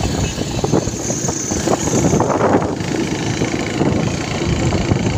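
Riding a two-wheeler through traffic: wind buffeting the phone's microphone in uneven gusts over the running engine and road noise.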